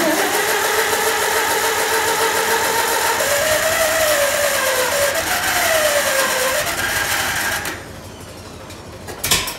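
Farmall M tractor's electric starter cranking the four-cylinder engine steadily for almost eight seconds, then stopping abruptly. A short second burst of cranking comes near the end.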